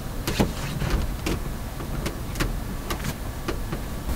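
A series of light knocks and clicks, about a dozen spread irregularly, from someone moving about and handling gear in a pickup's covered truck bed, over a steady low rumble.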